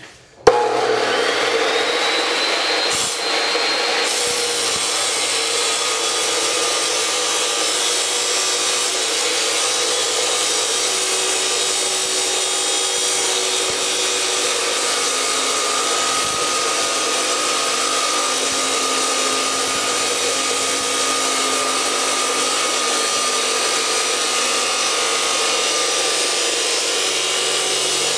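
Hercules 14-inch abrasive chop saw starting up with a click and a rising whine as the motor spins up, then grinding steadily through metal with its abrasive wheel. The motor holds its speed under a hard push and does not bog down.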